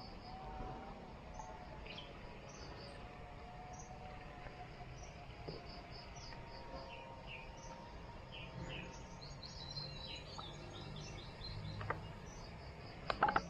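Insects and birds chirping in a steady outdoor chorus of short, repeated high calls. A quick cluster of sharp clicks near the end is the loudest sound.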